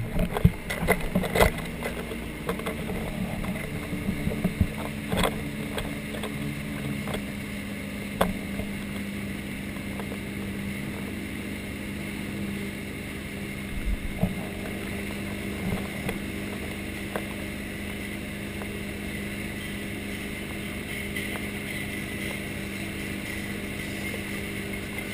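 A 2012 RZ2 wake boat's inboard engine running at a steady cruising pace, a constant drone under the rush of the churning wake and wind. A few sharp knocks and splashes come in the first several seconds.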